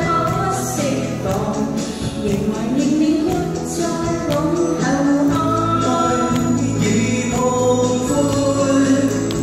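A woman and two men singing a song together into handheld microphones over musical accompaniment, amplified through a PA.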